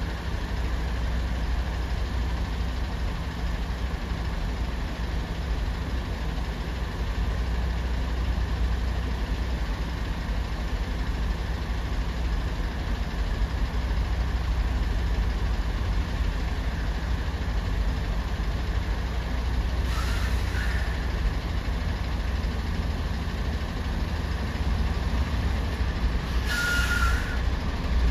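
Heavy diesel engines rumbling steadily at low revs. Two short brake squeals with a hiss cut in, a brief one about twenty seconds in and a stronger one near the end.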